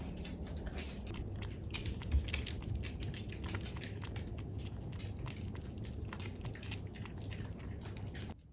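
A pet lapping milk from a dish: a quick, irregular run of small wet licking clicks that cuts off suddenly near the end.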